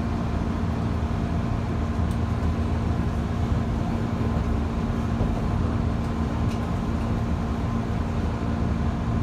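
Cabin running noise of a JR East 185 series electric train under way: a steady rumble with a constant low hum.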